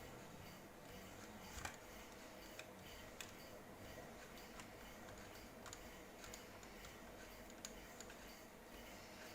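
Faint, scattered small clicks and taps at irregular intervals over quiet room hiss.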